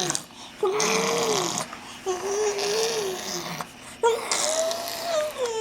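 Seven-month-old baby making drawn-out vocal sounds: three long held notes of fairly steady pitch with short breaks between, the last one rising and then sliding down.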